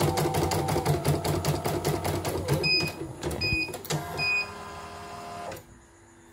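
CNY E900 embroidery machine stitching at a fast, even rhythm with its newly replaced motor, then stopping about two and a half seconds in. Three short electronic beeps follow, evenly spaced. Then comes a brief steady whirr that cuts off suddenly.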